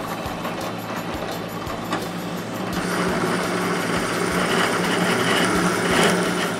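Power drill running, boring a quarter-inch hole through a three-quarter-inch wooden dowel: a steady motor hum with a hiss of cutting, growing louder and brighter about three seconds in.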